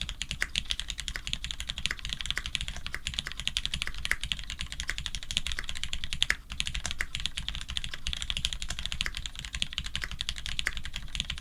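Continuous fast typing on a Monstargear XO V3 custom mechanical keyboard fitted with Krytox 105-lubed Cherry Retooled Black linear switches, an FR4 plate and GMK Merlin keycaps: a dense patter of keystrokes. There is one brief pause a little past the middle.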